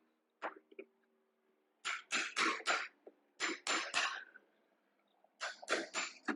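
Hand file or rasp scraping across wood in short strokes. The strokes come in quick groups of three or four with brief pauses between.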